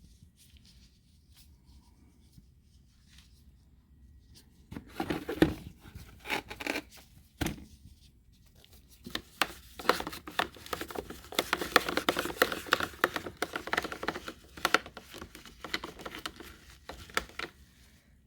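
Plastic packaging being torn and crinkled in bursts, starting about five seconds in and busiest in the second half, with sharp clicks from handling.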